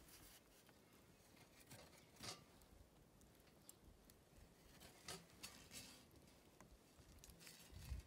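Near silence with a few faint, scattered crackles and rustles of bare feet stepping on dry pine needles, leaves and wood shavings.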